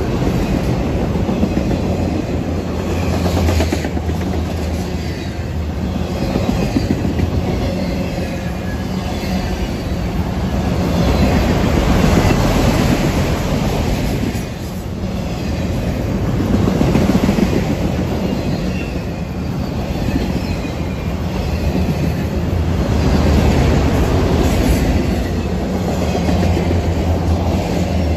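Freight train of enclosed autorack cars rolling past close by: continuous rumble and clatter of steel wheels on the rails, swelling and easing every several seconds.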